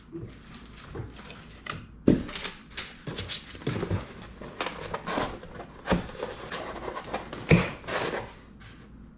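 Crossbow parts and packaging being handled inside a cardboard shipping box: irregular rustling and shuffling with a few sharp knocks, the loudest about two seconds in and near the end.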